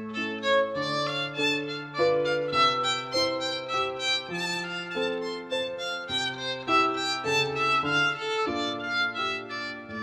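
Instrumental background music: a melody of changing notes over held lower notes.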